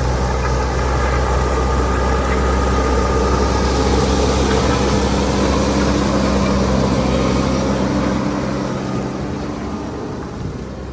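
Engine of a heavy road-works machine levelling the road, running steadily and fading over the last few seconds.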